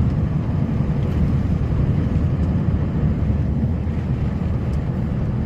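Snowplow truck driving along a snowy road with its plow blade pushing a full load of snow: a steady low drone of engine and road noise with no breaks.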